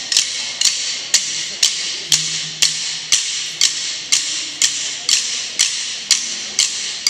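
Triangle struck in a steady beat, about two strikes a second, each one ringing bright and high until the next.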